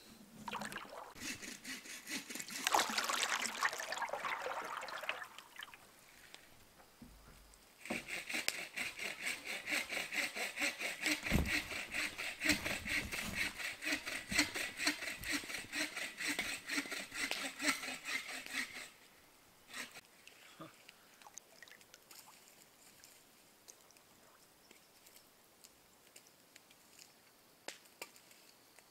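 A paddle dipping and splashing in calm lake water. After that comes a quick, even run of strokes lasting about ten seconds, then the sparse pops of a crackling campfire.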